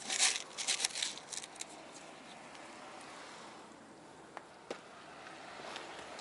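A plastic cup of small metal screws knocks down on a plywood panel, followed by about a second and a half of rattling and clicking as fingers pick through the screws. A couple of faint single clicks come later.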